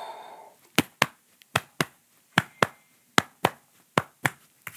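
The tail of a slow exhaled breath, then a hand patting the chest in a heartbeat rhythm: sharp double pats, a quarter second apart, repeating about every 0.8 seconds, some six times.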